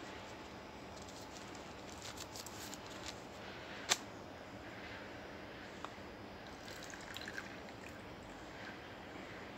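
Faint steady background hiss with scattered light clicks and taps of something handled close to the microphone, the sharpest click about four seconds in.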